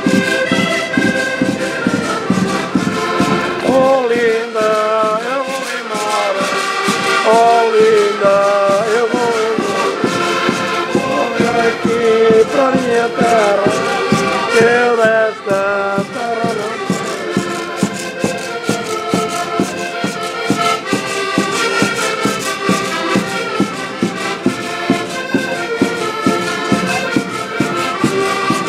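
Accordion ensemble playing a lively traditional tune together, with a steady beat throughout.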